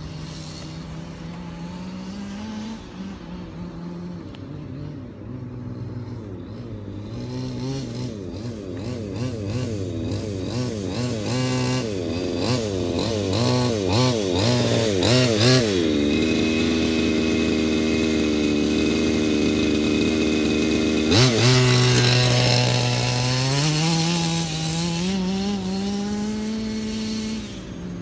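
HSP Warrior RC monster truck's 30cc petrol two-stroke engine running as the truck is driven. The pitch wavers rapidly up and down as the throttle is worked, then holds a steady, loudest note around the middle, jumps suddenly, and climbs again near the end.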